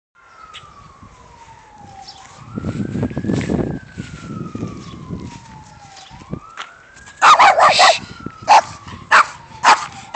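An emergency siren wailing, its pitch sliding slowly down and up, with a low rumble about three seconds in. From about seven seconds a dog barks repeatedly, louder than the siren.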